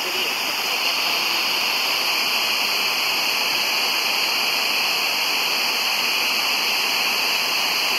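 Steady FM static hiss from a Sangean portable radio's speaker after the station's speech breaks off: the weak signal has dropped out, leaving only receiver noise.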